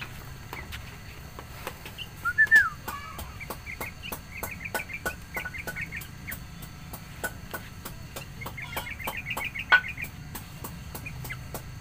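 Sooty-headed bulbuls calling: a short sliding call about two seconds in, then quick chattering runs of chirps around four to five seconds in and again near ten seconds. A light, irregular clicking runs under the calls.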